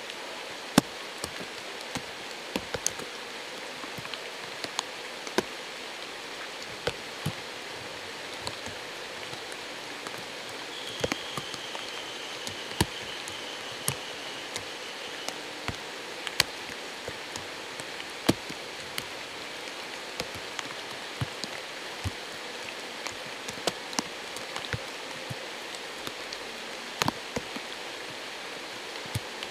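Night ambience at a spring-fed stream: a steady hiss of flowing water with irregular sharp ticks throughout, and a faint, high, wavering tone for a few seconds about a third of the way in.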